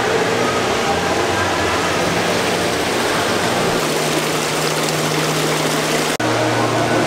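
Steady rushing of water falling in an indoor fountain over a low hum, with a brief sharp drop in level about six seconds in.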